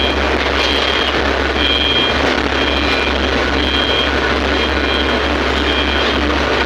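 Heavy earthmoving machinery with a diesel engine running steadily, over a repeating electronic backup alarm beeping about once a second.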